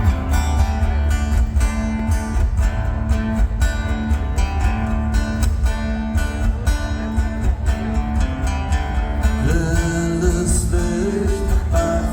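Live band playing an instrumental intro: a steady fast beat over sustained bass and guitar, with a new held melody line coming in about nine and a half seconds in.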